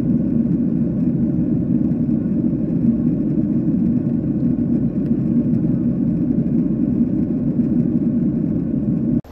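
Steady low rumble of a moving vehicle. It ends abruptly near the end.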